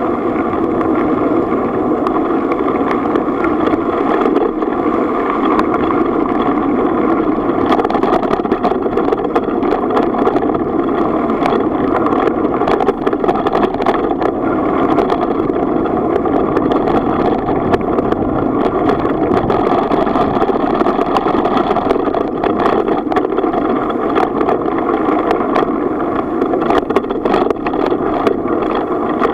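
A bicycle rolling along a rough gravel-and-tarmac path: steady tyre and frame rumble with frequent small clicks and rattles from bumps.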